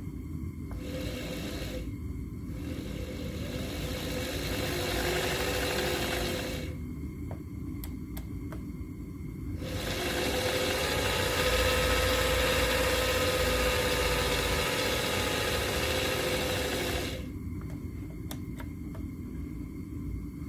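Präzima Z5 watchmaker's lathe motor and spindle switched on through its foot starter: a brief blip, then a run of a few seconds at a lower setting, and after a pause a longer, louder run at full power, each time spinning up and winding down. A few light clicks of the pedal sound in the pauses.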